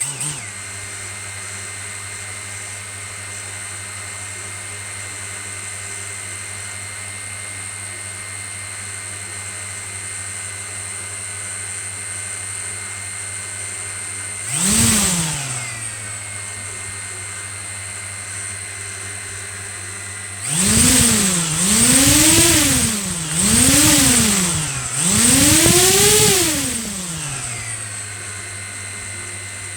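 DJI Mavic Mini drone's four brushless motors starting up and idling with a steady hum and a thin high whine. About halfway through they rev up and back down once, then rev four times in quick succession near the end, each time rising and falling in pitch.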